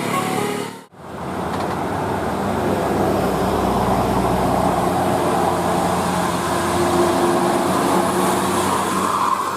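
The last notes of a bus's multi-tone telolet horn stop as the sound cuts out briefly about a second in. After that, steady road traffic noise with a bus engine running.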